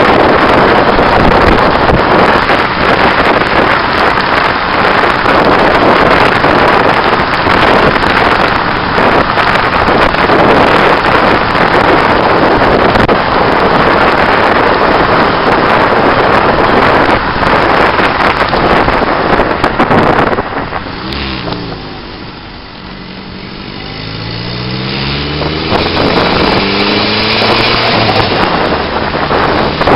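Heavy wind buffeting and road noise on a camera mounted outside a fast-moving car. About two-thirds of the way through the wind drops away as the car slows, then the car's turbocharged SR20 four-cylinder engine is heard accelerating, rising in pitch, while the wind noise builds again.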